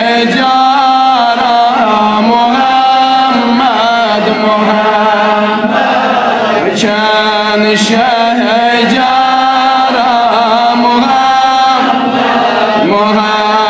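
Male voice chanting a Kashmiri naat in long, wavering sung notes over a steady drone.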